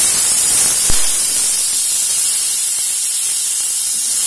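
Chicken pieces sizzling steadily in a little hot oil with garlic in a wok as they are stirred with a wooden spatula; one sharp knock about a second in.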